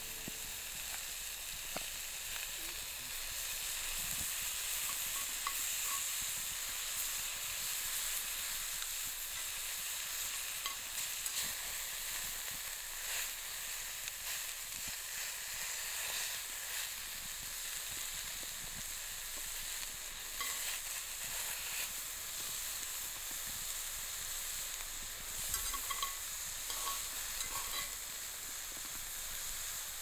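Bacon frying in a cast-iron skillet: a steady sizzle, with a few light clicks as tongs turn the strips in the pan.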